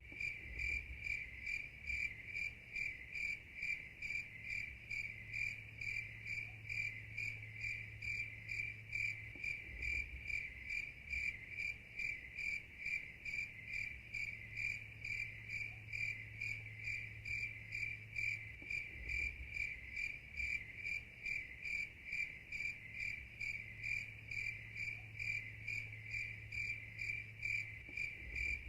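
Night insects chirping in a steady, even rhythm of about two high-pitched chirps a second.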